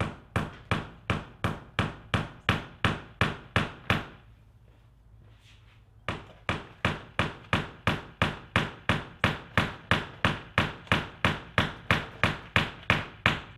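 Hammer tapping the little door stoppers into an IKEA Brimnes wardrobe panel: quick, even blows about three a second, with a pause of about two seconds about a third of the way in.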